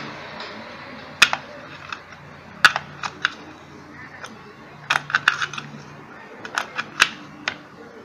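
Sharp metallic clicks and taps of an adjustable wrench on the armature-shaft nut of a vacuum cleaner motor as the nut is worked loose, about a dozen scattered clicks with a quick cluster around the middle.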